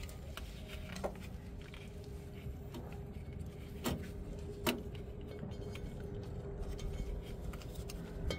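A few light clicks and taps from hand work on the fuel-line fittings and clips under a truck, the two sharpest about four and four and a half seconds in, over a faint steady hum.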